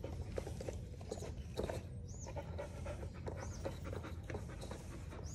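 A dog panting, with quick, uneven breaths that repeat throughout.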